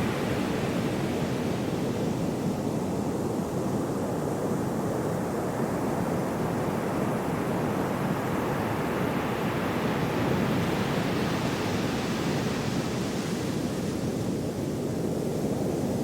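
Gentle sea waves washing in, a steady rushing surf, with one wash growing brighter and hissier from about eight seconds in before easing off again.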